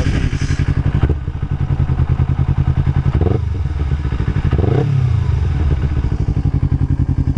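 Kawasaki Ninja 250R parallel-twin running through a Blueflame twin exhaust with the baffles taken out, idling with a quick, even, pulsing beat. It swells briefly twice, about three and five seconds in, as the throttle is blipped.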